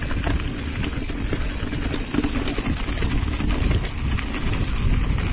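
Mountain bike rolling over a dirt trail, heard from a handlebar-mounted action camera: a steady rumble of tyres and wind on the microphone, with frequent small rattles and knocks from the bike as it goes over bumps.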